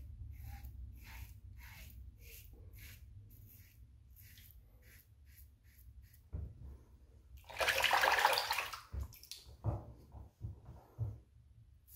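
Rockwell 6S stainless safety razor with an Astra blade scraping through lathered stubble on the cheek, in short rasping strokes about twice a second. About seven and a half seconds in, water runs from a tap for just over a second, followed by a few knocks.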